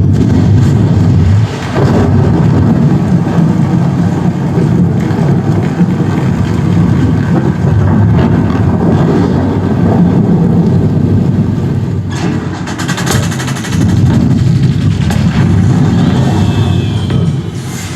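Film soundtrack played loud through a Sony HT-S20R soundbar and subwoofer: deep rumbling effects under music, with a sharp crash about two-thirds of the way in.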